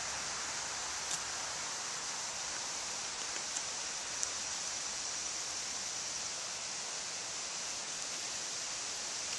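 Steady outdoor hiss, brightest in the high range, with three faint sharp ticks in the first half.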